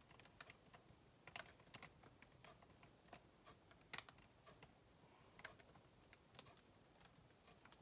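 Near silence broken by about a dozen faint, scattered light clicks and taps from the handling of a paint-covered wooden stick.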